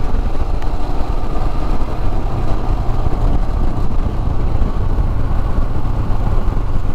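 Royal Enfield Himalayan motorcycle being ridden at road speed: steady wind rush on the microphone over the engine's low running.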